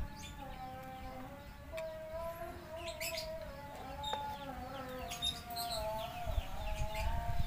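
Small birds chirping over a faint, sustained wavering tone, with a single sharp click about four seconds in.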